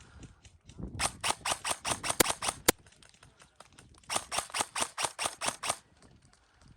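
Airsoft gun firing in two fully automatic bursts, each under two seconds long, at about ten shots a second.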